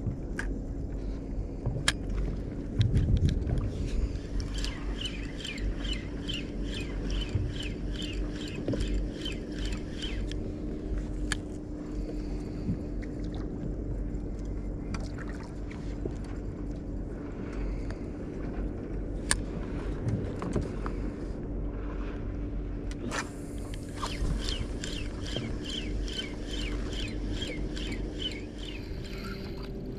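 Boat engine idling with a steady low hum and a held tone. Over it come two stretches of fast, even ticking, about three a second, from a spinning reel being wound in: one a few seconds in and one near the end.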